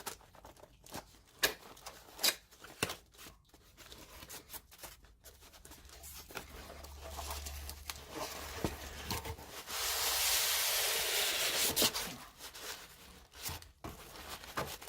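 Packaging handled by hand: scattered rustles and light knocks, then about two seconds of louder tearing and crinkling a little past the middle.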